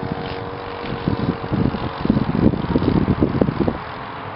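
The Zenoah G62 two-stroke petrol engine of a one-third-scale model aircraft drones steadily overhead, turning its propeller through a reduction unit. From about a second in, loud gusts of wind buffet the microphone and cover most of the engine tone.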